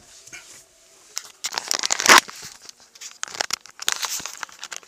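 Handling noise from a dashcam being taken down and held: irregular rustling and scraping against the microphone, with scattered clicks, loudest about two seconds in.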